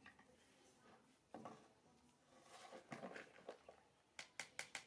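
Quiet handling noises: a few soft knocks and rustles, then a quick run of light clicks near the end as a plastic basket is handled.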